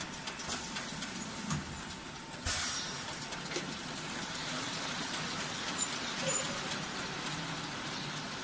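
Automatic piston filling and screw-capping machine running, with repeated sharp clicks and clatter. A steady hiss starts about two and a half seconds in and carries on under the clicking.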